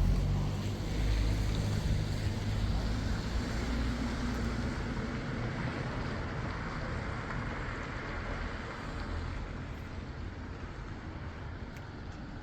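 South Western Railway train running through the level crossing, a low rumble of wheels and motors that fades steadily as it moves away.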